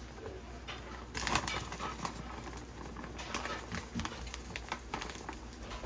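Light kitchen clatter: scattered soft taps and clicks of a container and utensil as cornmeal is added to a bowl of flour, over a low steady hum.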